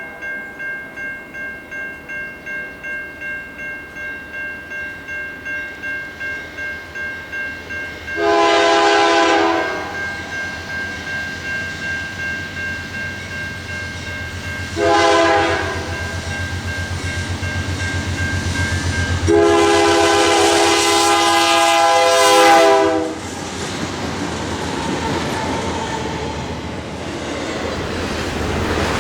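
Grade-crossing warning bell ringing steadily, then a CN diesel locomotive's air horn sounding three chord blasts: a long one about eight seconds in, a short one around fifteen seconds and a long one around twenty seconds. The locomotive's engine rumble grows under the horn, then the train's noise rolls on after it.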